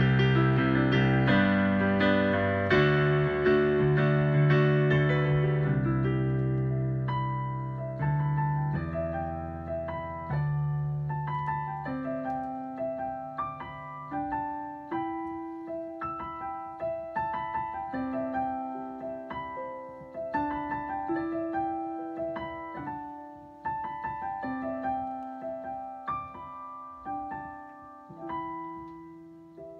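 Digital piano played solo: loud, full chords for the first several seconds, then a softer, sparser melody of single notes over held bass notes, dying away near the end.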